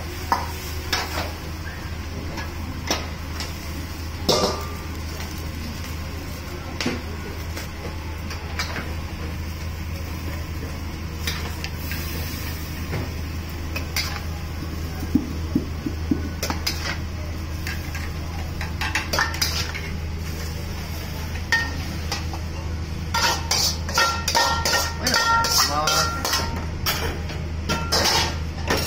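A metal ladle clanks and scrapes in a steel wok of champon vegetables and soup, over a steady low hum. There are scattered knocks, then a dense flurry of clinks and clanks near the end as the ceramic bowls are filled and set down on plates.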